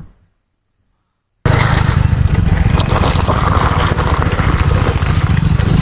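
Silence for about a second and a half, then a motorcycle riding sound starts suddenly: a loud, rough, steady rumble with a dense noisy hiss over it.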